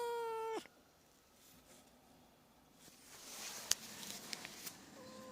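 Domestic cat meowing: a loud meow held on one pitch cuts off within the first second. After a pause comes a rustling hiss with a few sharp clicks, and near the end a softer meow begins, falling slightly in pitch.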